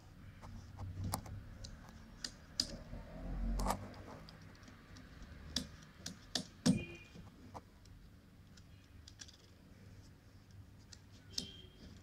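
Irregular light clicks and taps, a few at a time. A soft low rumble comes for a moment about three seconds in.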